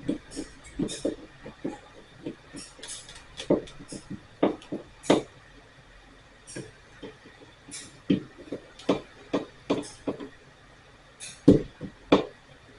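Irregular clicks, taps and knocks of hand tools and small metal hardware being handled while an electrical receptacle is wired, with a couple of louder knocks about a second before the end.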